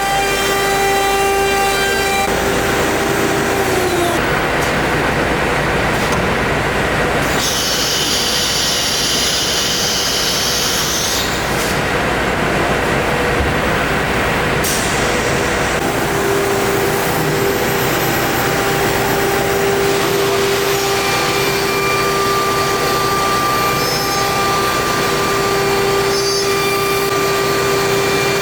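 High-speed CNC nesting router running: a steady mechanical noise with a held spindle whine. The whine fades out about four seconds in and returns about halfway through.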